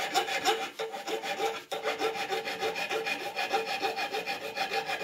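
Metal file of a Victorinox Workchamp pocket knife rasping across a round steel bar in quick back-and-forth strokes, about four a second, each with a squeaky edge, chamfering the end of the bar.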